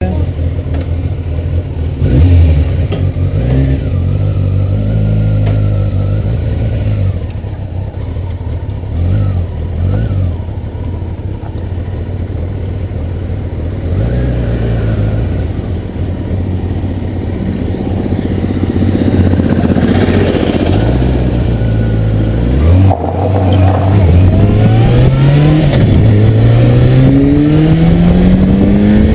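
Motorcycle engine running at low speed, then accelerating over the last few seconds: its pitch rises, drops once at a gear change, and rises again.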